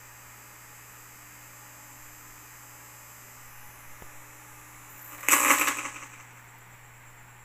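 Steady low electrical hum while the karaoke player boots, broken about five seconds in by a sudden loud rush of noise that dies away in under a second.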